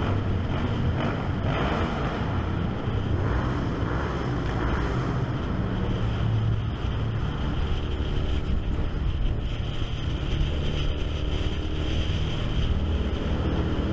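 Honda VTR1000 90-degree V-twin motorcycle engine running steadily at cruising speed, heard from on board the bike, with wind noise on the microphone.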